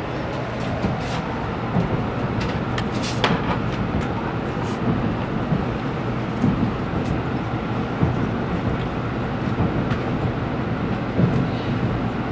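Tokaido Shinkansen train heard from inside the carriage: steady running noise with a low hum, and scattered light clicks at irregular moments.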